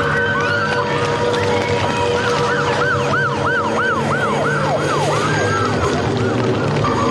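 Siren-like wailing: quick rising-and-falling pitch sweeps, about three a second in the middle, over steady tones and a dense background noise.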